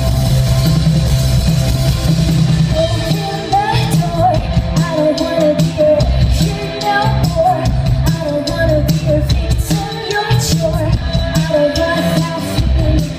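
Live rock band playing a song with drums, bass, electric guitars and keyboard, with a wavering melody line over the top from about three seconds in, heard from within the audience.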